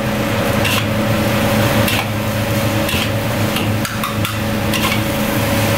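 Metal ladle knocking and scraping against a wok while rice is stir-fried, striking about once a second over a steady hum.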